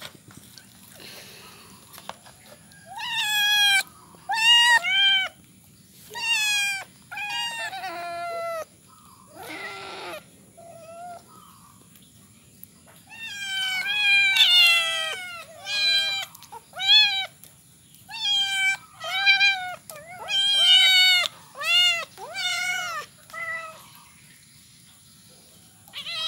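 Several kittens and young cats meowing over and over, short high meows that drop in pitch at the end, coming in quick runs of a few calls with a lull just before the middle; near the end the meowing stops.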